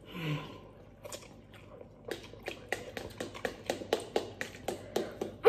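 People eating instant noodles: a short low grunt at the start, then from about two seconds in a quick run of clicks and taps, about three to four a second, from metal forks against plastic bowls and chewing.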